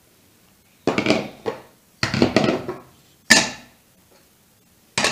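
Four clattering knocks of a plastic container against a plastic sieve as flour is emptied into it, each sudden with a short ringing tail, about a second apart.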